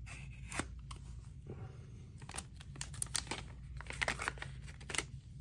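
Plastic parts bag being opened and crinkled in the hands, an irregular run of short crackles and rustles.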